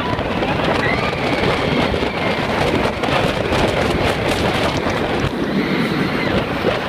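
Loud, steady wind noise buffeting the microphone with the running noise of the X2 roller coaster train on its steel track, as the train speeds through the ride's elements.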